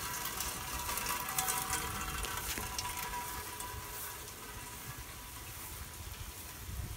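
Rain falling steadily: a crackling hiss that eases slightly about halfway through.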